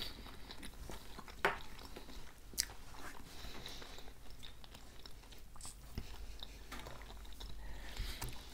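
Close-miked chewing of soft, mayonnaise-dressed crab salad: faint wet mouth sounds with scattered small clicks, two of them sharper about a second and a half and two and a half seconds in.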